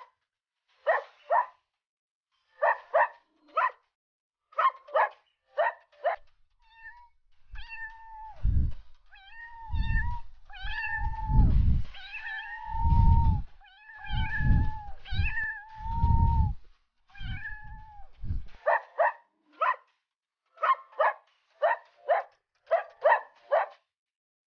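Domestic cat meowing: short mews in quick twos and threes, then a stretch of longer drawn-out calls with low rumbling sounds beneath them, then short mews again near the end.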